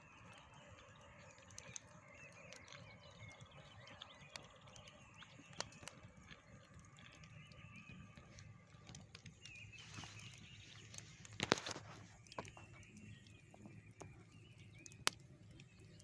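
Open wood fire crackling and snapping, with two loud pops, one a little past halfway and one near the end. A songbird warbles in the background, mostly in the first half.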